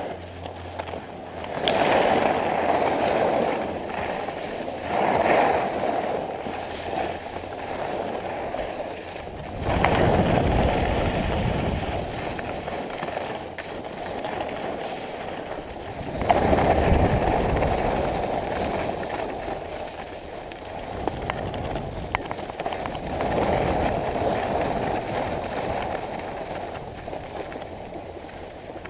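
Skis sliding on packed snow, the scrape of the edges swelling with each turn: about five surges.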